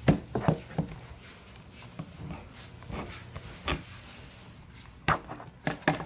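Utility knife scoring a clear acrylic plexiglass sheet laid on a wooden board: a series of sharp scratching clicks and knocks, several in the first second and a cluster near the end.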